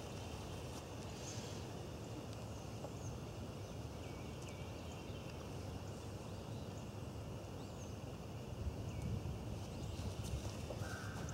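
Outdoor ambience: a low steady rumble with a few faint, short bird chirps, and the footsteps of a person and a dog walking over dry leaves and grass, louder near the end.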